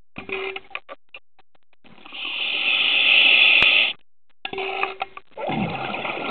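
Scuba diver breathing through a regulator underwater: a steady hiss of inhalation through the demand valve for about two seconds, then the rougher bubbling of an exhalation near the end.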